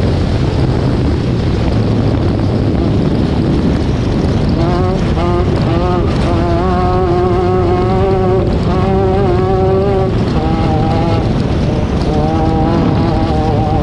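Desert off-road race vehicle running at speed: a steady loud roar of engine, drivetrain and wind. From about four and a half seconds in, a high engine note wavers up and down in pitch over the roar.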